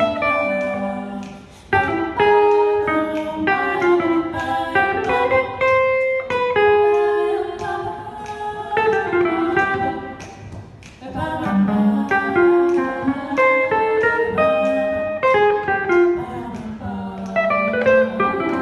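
Women's voices singing a song in close harmony, accompanied by a guitar.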